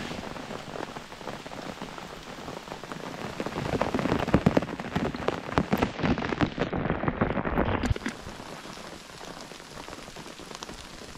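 Heavy rain falling, with many close drops striking near the microphone; it grows louder toward the middle and drops off sharply about eight seconds in, then goes on more quietly.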